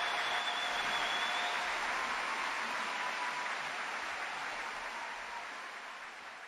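Concert audience applauding after a live performance, fading out gradually.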